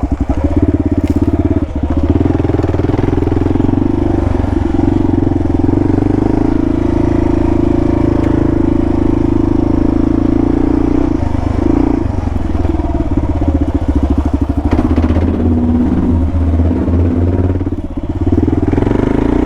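Kawasaki KLR650's single-cylinder engine running steadily as the motorcycle is ridden, with brief dips in level about two seconds in and near the end.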